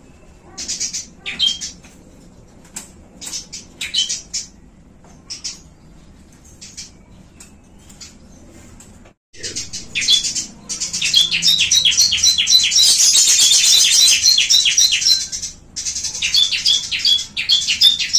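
Caged small birds chirping: Eurasian tree sparrows with a bar-winged prinia and a lovebird. Scattered short chirps come first, and the sound cuts out for a moment about nine seconds in. From about ten seconds there is a dense run of rapid, high chattering lasting some five seconds, then more quick clusters of chirps.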